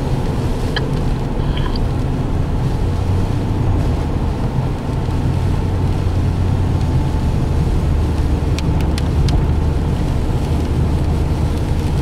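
Steady low rumble of a car driving on a rain-soaked road, heard from inside the cabin. A few faint clicks come about nine seconds in.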